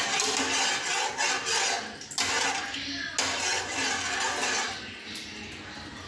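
A metal spoon stirring sugar into water in an aluminium saucepan, scraping and clinking against the pan's bottom and sides, with short breaks. The stirring stops about five seconds in.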